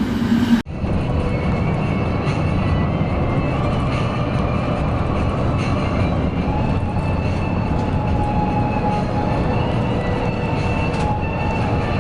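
Mercedes-Benz OC 500 RF 2542 coach running steadily at speed, a dense rumble of engine and road noise with a faint steady whine. It starts after a sudden brief dropout about half a second in.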